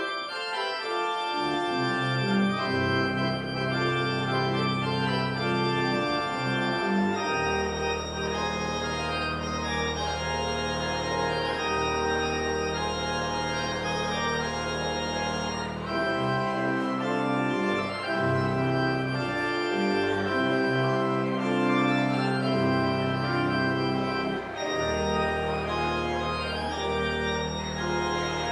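Church organ playing the postlude at the end of the service: sustained chords over deep bass notes.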